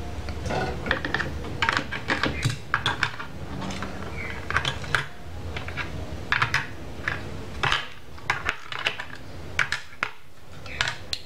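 Irregular light clicks and clatter of a set-top box's circuit board being handled and lifted out of its black plastic case, with a spool of solder wire in the same hand, over a low steady hum.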